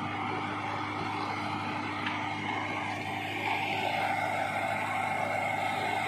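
Self-loading concrete mixer's diesel engine running steadily, with a high whine over it that grows a little stronger about halfway through.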